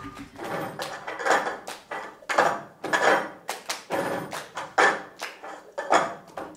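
A group beating out a quick percussive rhythm with hands on a table and clapping: a run of sharp knocks and claps, about three to four a second.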